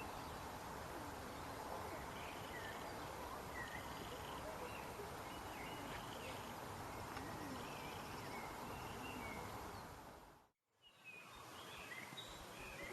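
Steady outdoor background noise with small birds chirping now and then. The sound cuts out for a moment about ten and a half seconds in, then returns.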